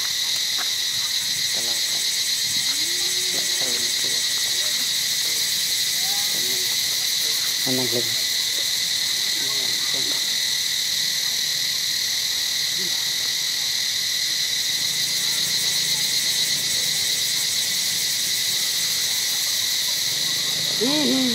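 Steady, high-pitched insect chorus droning without a break, with faint short rising-and-falling animal calls scattered through it.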